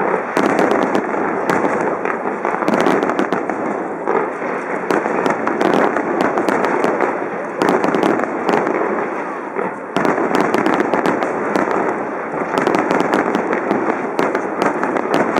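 Fireworks grand finale: a continuous, dense barrage of many shells bursting at once, with a steady crackle of countless sharp pops.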